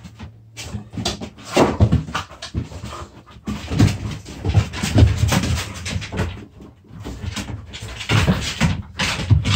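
Two dogs, one a puppy, play-fighting: panting and scuffling in irregular bursts.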